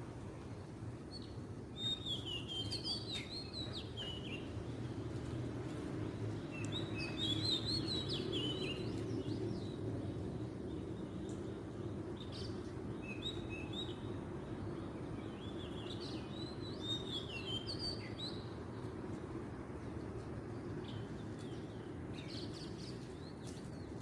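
Oriental magpie-robin singing in short phrases of quick, varied whistles, about five phrases a few seconds apart, over a steady low background hum.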